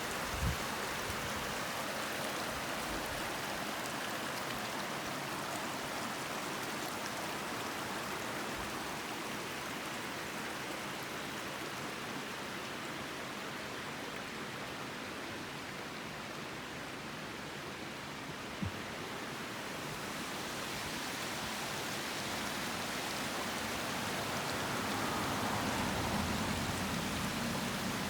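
Shallow mountain river babbling over stones: a steady rushing murmur that swells a little near the end.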